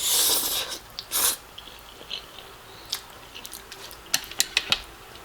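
Close-miked eating sounds of someone chewing saucy black bean noodles: two loud hissing bursts, one at the start and one about a second in, then soft wet mouth clicks and chewing.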